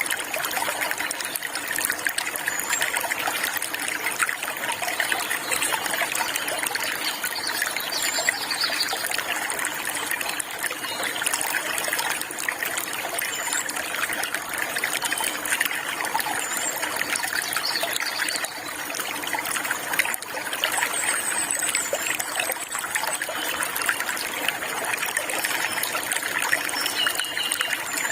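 Flowing water trickling and splashing steadily, with a few faint, short, high bird chirps now and then.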